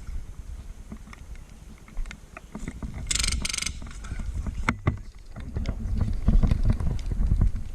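Wind and handling rumble on a body-worn camera microphone with scattered clicks, broken about three seconds in by a short rapid rattle, likely a burst of airsoft fire, and a sharp snap a moment later.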